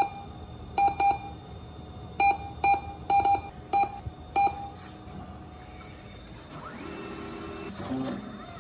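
ATM keypad beeps: about nine short, sharp single-pitch beeps over the first four and a half seconds as touchscreen buttons are pressed. A steady mechanical whirr follows about six and a half seconds in, lasting a second or two as the ATM's cash dispenser runs.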